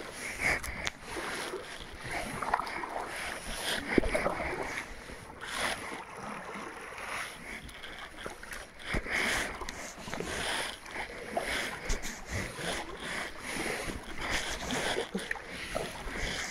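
Kayak paddling: paddle blades dipping into lake water with splashing and dripping, in uneven surges.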